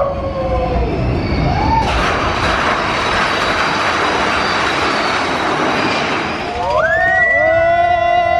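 Big Thunder Mountain Railroad mine-train roller coaster running: a loud rush of wind and track noise for several seconds, then riders screaming together in long held cries for the last couple of seconds.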